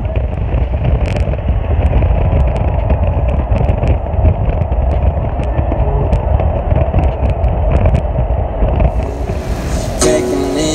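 Road and engine noise heard inside a moving car on a highway: a steady low rumble. Near the end it gives way to a brighter hiss, and music comes in.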